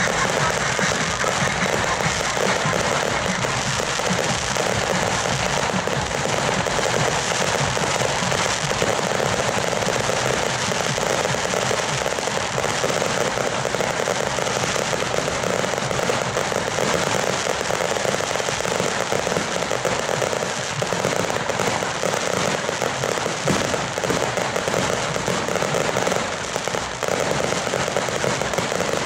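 Ground fireworks going off in a dense, steady crackle that does not let up.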